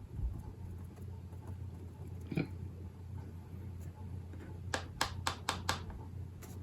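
A run of about six quick, light taps near the end, from a Distress Ink pad being dabbed onto paper in clusters of splotches, after one softer dab or rub earlier. A low steady hum lies under it.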